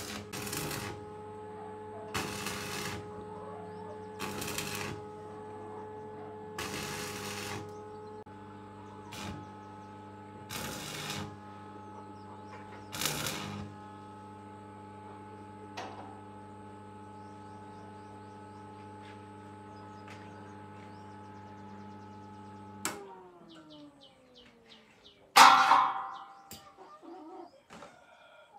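A machine's steady hum, broken for the first part by short noisy bursts about every two seconds. About 23 seconds in the hum winds down, falling in pitch until it stops, and a loud knock follows shortly after.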